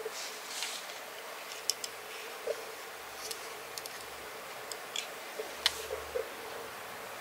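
Two soft scratchy strokes of a FURminator deshedding tool's metal edge through a cat's fur, then a scattering of light clicks and ticks from the plastic tool being handled, over a steady hiss.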